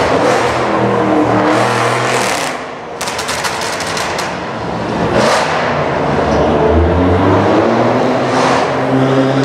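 Audi RS7 Sportback's twin-turbo V8 with a loud aftermarket exhaust, revving and accelerating with rising and falling pitch. A rapid run of crackles comes about three seconds in.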